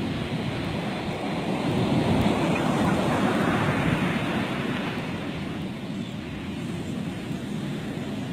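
Ocean surf breaking and washing up a sandy beach, the rush of water swelling about two seconds in and easing off after about four seconds, with wind on the microphone.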